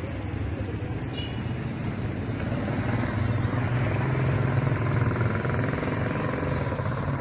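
Motor vehicle engines running on a street with mototaxis and motorcycles, a steady low hum that grows louder over the first few seconds and then holds.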